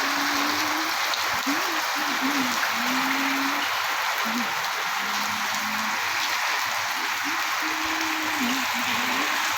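Heavy rain falling steadily, a dense even hiss, with a low wavering tone coming and going underneath.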